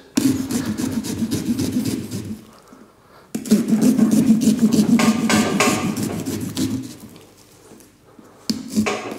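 Small serrated pumpkin-carving saw cutting through pumpkin rind with a little saw action: rapid back-and-forth rasping strokes in two spells, about two seconds and then three and a half seconds, with a short pause between.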